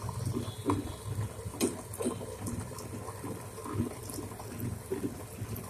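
Bajaj WX1 wet grinder running: a steady low motor hum under the sloshing and churning of wet contents in the rotating drum, with scattered small clicks.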